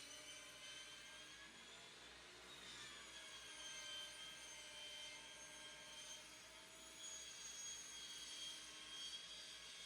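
Faint, steady high whine of an electric woodworking machine running, its pitch wavering slightly.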